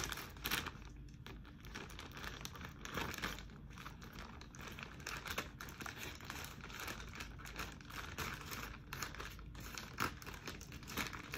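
Plastic mailer bag crinkling and rustling in irregular bursts as it is handled and cut open with scissors.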